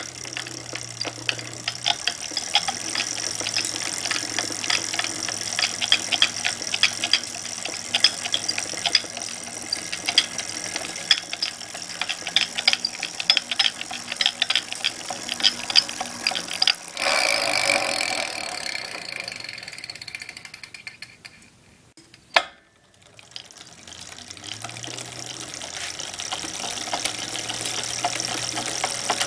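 A2B Metro G2 e-bike drivetrain making fast, irregular ticking and knocking while pedaled, over a low steady hum. The owner suspects a dry, under-lubricated freewheel. About 17 s in it gives way to a hiss that fades almost to silence, followed by one sharp click, and then the running sound builds up again.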